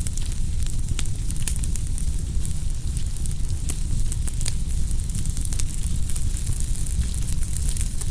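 Wood fire burning: a steady low rumble of the flames with irregular sharp crackles and pops from the burning wood, a few a second.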